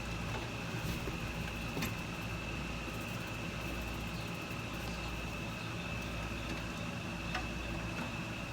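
Steady outdoor background noise: an even hiss over a low hum, with a constant thin high tone and a couple of faint clicks.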